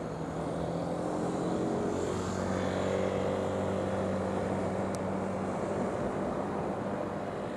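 A motor engine running with a steady hum, its pitch rising over the first few seconds, over outdoor wind noise.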